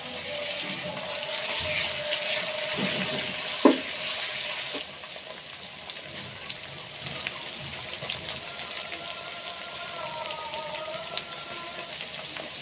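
Hot oil sizzling in a metal karahi as a paste is stirred in with a spatula, with one sharp clank of the utensil on the pan about three and a half seconds in. After about five seconds the sizzle settles lower while spoonfuls of salt and chilli powder go in, with a few light taps of the spoon.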